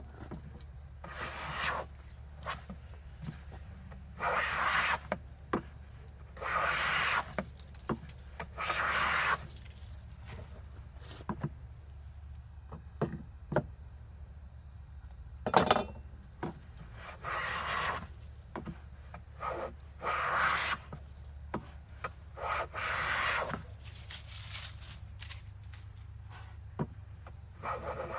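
Hand plane taking strokes along a wooden board: a series of rasping, shaving strokes about a second long, one every two to three seconds, with light knocks between strokes.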